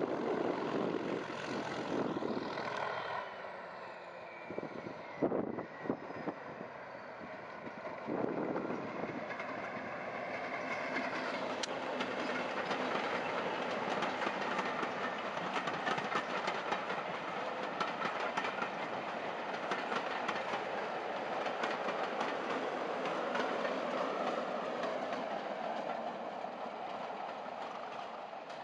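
Class 37 diesel locomotive with its English Electric V12 engine hauling a train of coaches past, followed by a long steady rumble of the coaches rolling by with fast clicking of wheels over the rail joints.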